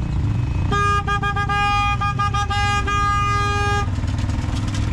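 A vehicle horn sounds on one steady note, pressed in a rapid string of short honks for about three seconds, starting under a second in. Underneath, the low, steady running of the Polaris Ranger Diesel UTV's engine.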